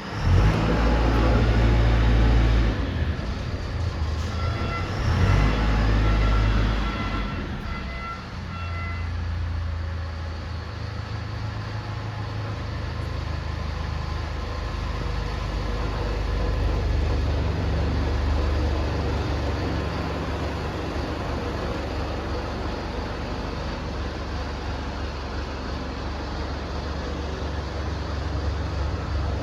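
Compressed wood-chip pallet press machinery running with a steady low hum. Two louder surges come in the first seven seconds, with a faint high whine between about four and eight seconds in.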